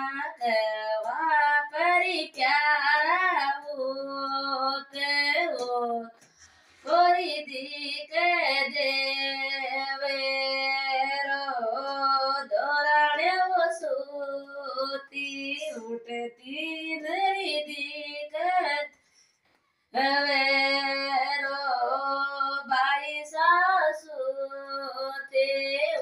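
A woman singing a devotional bhajan solo and unaccompanied, in long ornamented phrases. The voice drops out for two short breaths, about a quarter of the way in and about three quarters through.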